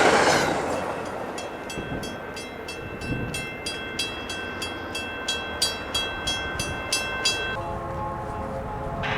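Railroad grade-crossing bell ringing with evenly spaced strikes, about three a second, each strike ringing on; it stops near the end. At the start, the rumble of a passing train and wind noise fade away.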